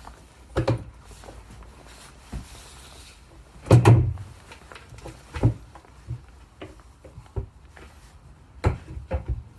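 A cabinet door on concealed hinges being handled, swung and closed against the cabinet: a series of wooden knocks and clunks, the loudest about four seconds in and a cluster near the end.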